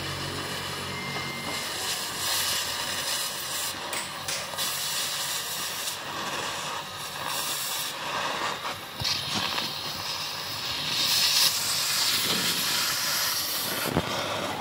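Oxy-fuel cutting torch hissing steadily as its flame cuts into the steel of a truck's brake backing plate. The hiss swells louder and brighter for a few seconds past the middle, and there is a sharp click near the end.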